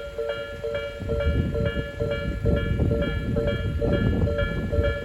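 Japanese level-crossing warning bell ringing in a steady, rapid two-tone alternation, while a Tobu Isesaki Line train runs past over the crossing. The train's low rumble grows louder about a second in.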